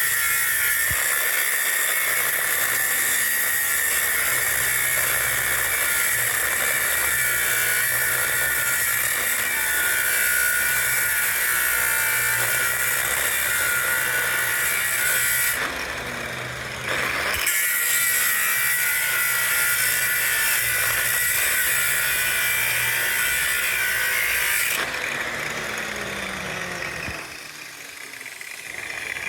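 A power tool cutting or grinding metal, running steadily with a high, harsh note. It breaks off for a couple of seconds about two thirds of the way through, starts again, then stops and winds down with a falling whine near the end.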